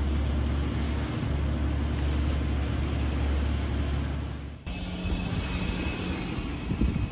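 Motorboat engine running with a steady low drone under rushing wind and water noise. After about four and a half seconds it cuts off abruptly to a quieter, steady street hum.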